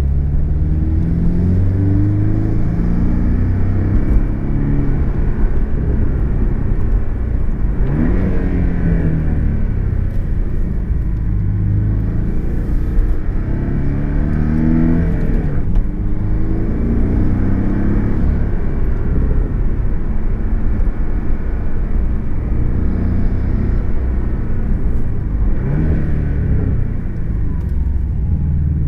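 Porsche sports car's engine heard from inside the cabin, repeatedly climbing in pitch as it accelerates and then easing off, with a quick sharp rise of revs about eight seconds in. Steady low road and tyre rumble runs underneath.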